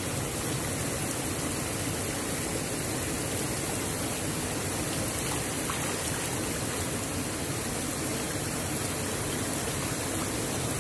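Steady rush of running water, an even noise that holds unchanged throughout.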